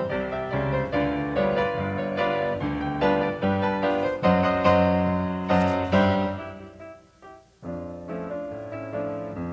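Piano music playing a melody over chords; it dies away to a brief pause about seven seconds in, then starts up again.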